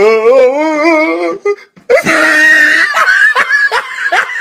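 A drawn-out, wavering, wailing voice, then after a short break a run of quick, high-pitched laughter that speeds up toward the end.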